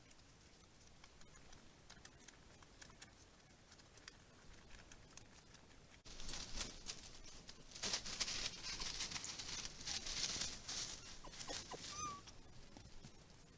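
Red foxes scuffling and rustling over dry earth and leaf litter close to the camera, starting suddenly about six seconds in after faint quiet, with many small clicks and patters. There is one brief high squeak near the end.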